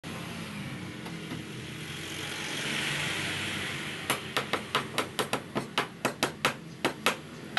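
A steady background rumble that swells briefly, then from about four seconds in a quick run of sharp hammer blows, roughly four a second, on the wooden console table frame.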